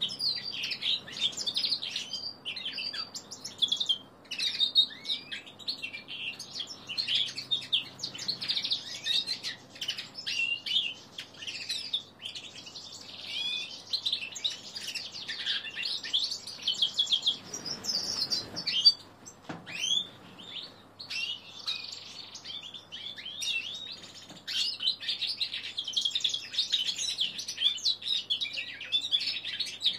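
Three-month-old male linnet × canary hybrid singing an unfinished song that it is still learning: a long, rambling run of quick twittering chirps and warbles. The run breaks off briefly about two-thirds of the way through.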